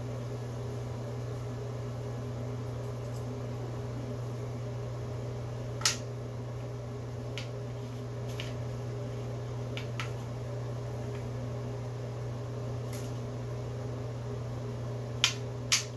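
A steady low mechanical hum with a few sharp clicks and taps of letter pieces against a wooden alphabet puzzle board, the loudest about six seconds in and two in quick succession near the end.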